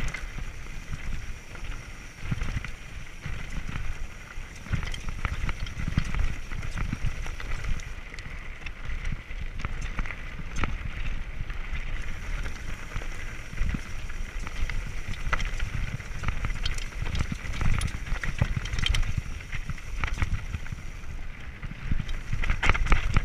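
Scott mountain bike rolling over a loose, rocky trail: tyres crunching over stones, with constant rattling and knocking from the bike and a low wind rumble on the microphone. The rattling gets louder near the end.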